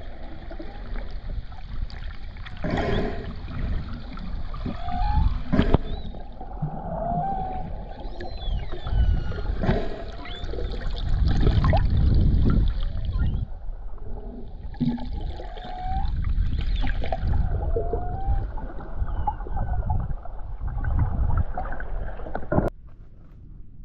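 Underwater sound: a low rumble of moving water with many short rising and falling calls of whales and dolphins, and a few sharp clicks. It cuts off suddenly near the end.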